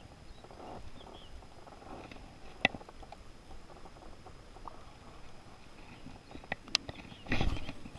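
Sparse sharp clicks and knocks of fishing tackle being handled in a small boat, with a louder dull thump a little before the end.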